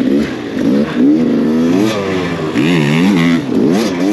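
Enduro dirt bike engine revving up and down again and again, its pitch climbing and dropping in quick swings as the rider works the throttle through the obstacles.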